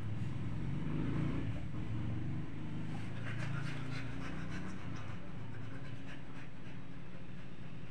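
Dogs panting and scuffling as a husky jumps off a fabric-covered sofa, with light clicks and rustles from about three seconds in, over a steady low hum.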